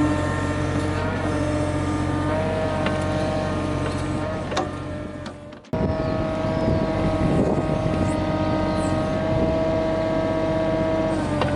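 Yanmar VIO20-1 mini excavator's diesel engine running steadily, with steady whining tones that shift in pitch a few times as the machine works. The sound fades and cuts off for an instant about five and a half seconds in, then resumes at the same level.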